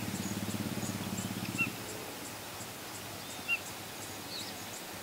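A low, drawn-out animal call that stops about a second and a half in, with a few short high bird chirps now and then.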